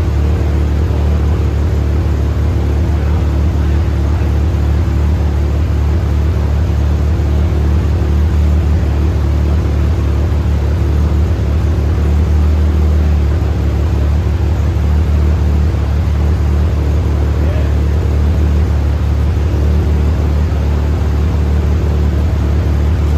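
Rotary engine idling steadily, a low rumble with a fast, even pulse and no revving.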